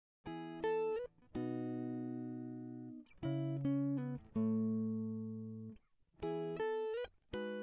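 Background music: a guitar plucking single notes and chords that ring and fade away, with a few short slides between notes.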